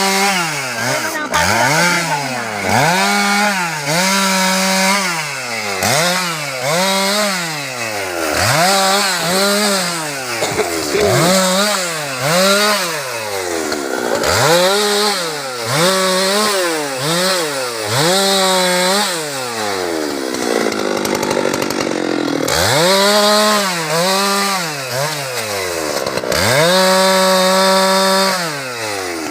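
Husqvarna 390XP two-stroke chainsaw revved up and down over and over, the throttle held at full speed for a second or two at a time between quick blips, with a softer, steadier stretch about two-thirds of the way in.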